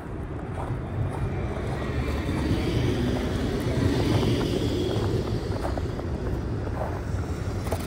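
Electric streetcar passing close by on its track, its running noise swelling to a peak about four seconds in and then easing off.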